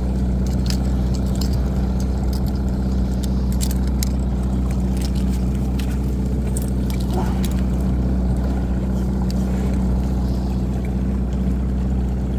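Boat motor running with a steady low drone at trolling speed, with scattered light clicks from fishing tackle (a snap and flasher) being handled.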